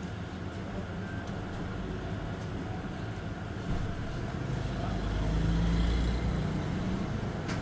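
Low rumble of a motor vehicle, growing louder from about four seconds in, loudest around six seconds, then easing.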